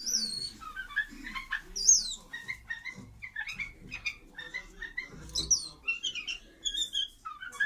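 White-eared bulbuls calling during a courtship display: a rapid run of short chirps and whistled notes, several high notes sliding steeply down in pitch.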